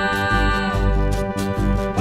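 Instrumental music from the song: bass notes on a steady pulse under long held high notes that die away before the middle, with percussion strokes coming in over the second half.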